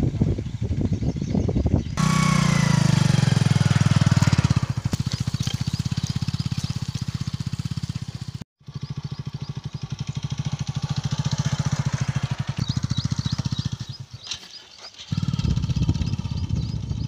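Motorcycle engine running with a rapid, even firing pulse as it pulls a weeding plough along the crop rows. It breaks off briefly twice.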